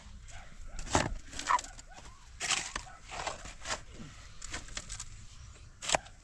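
Steel shovels scraping into stony soil and tipping dirt and rocks into a metal wheelbarrow, making irregular scrapes and clattering knocks.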